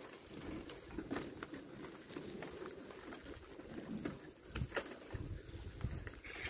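Footsteps on a dirt-and-gravel path, irregular soft steps and scuffs, with a pigeon cooing.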